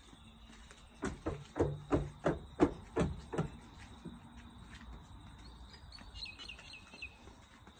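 A run of about nine sharp hand slaps, about three a second, followed near the end by a brief bird chirp.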